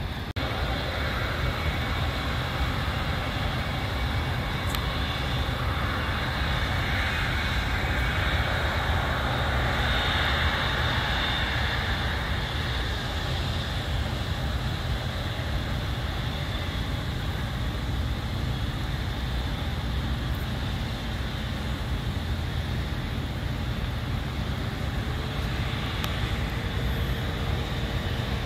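Jet aircraft engine noise, a steady rumble that swells about ten seconds in and then eases back.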